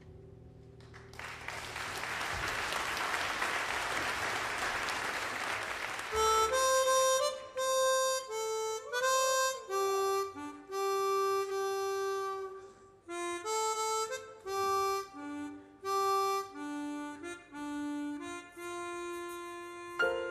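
Applause rises about a second in and lasts several seconds; then a chromatic harmonica plays a slow solo melody of long held notes, some sliding into pitch.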